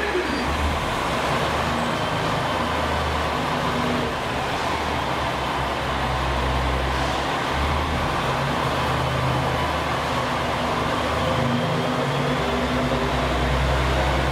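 KiHa 47 diesel railcar's engine running at the platform and then pulling away. Its low throb swells toward the end as the train moves off.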